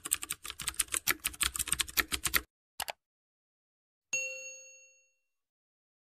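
Typing sound effect: rapid key clicks for about two and a half seconds, then a brief second burst of clicks. About four seconds in comes a single bell ding that rings out for about a second.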